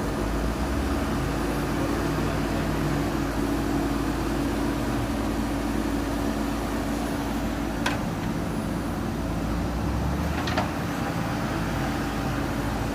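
JCB 3DX backhoe loader's diesel engine running steadily as it works, with two short sharp knocks, one about eight seconds in and another a couple of seconds later.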